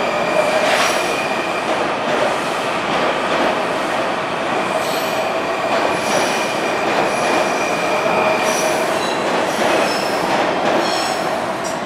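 Washington Metro 3000-series railcars pulling out of the station: steady rolling noise of steel wheels on rail with a steady hum and a high tone that fades out about nine seconds in. High whistling wheel squeal comes and goes in the second half.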